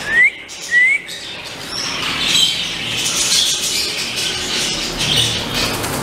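Many caged small birds chirping together in a bird shop aviary. Two short, loud rising whistles come near the start.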